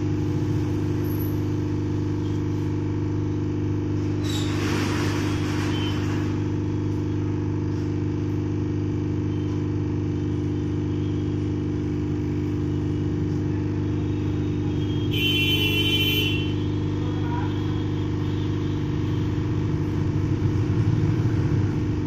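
A steady low hum made of several fixed tones. A short hiss comes about four seconds in, and a brief high-pitched tone comes around fifteen seconds in.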